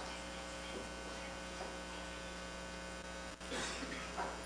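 Steady electrical mains hum under faint room noise, with a momentary dropout a little past three seconds in.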